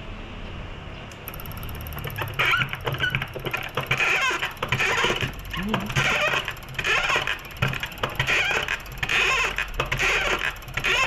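Diesel fuel injector from a 2013 Toyota Fortuner being tested on a hand-pumped injector tester: a spraying chatter in repeated bursts, one or two a second, with each stroke of the pump, starting about two seconds in.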